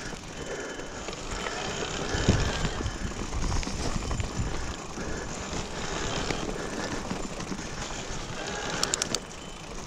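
Mountain bike riding over a rough, wet dirt trail: steady tyre and rolling noise with low knocks and rattles from bumps, and a few sharp clicks near the end.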